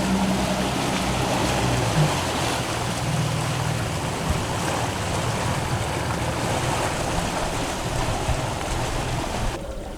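A boat engine running steadily with the rush of wind and water around the hull. The sound drops off abruptly near the end.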